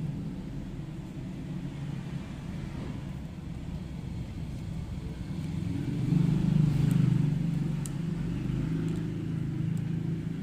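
Low, steady engine rumble that grows louder for a couple of seconds about six seconds in, with a few faint clicks.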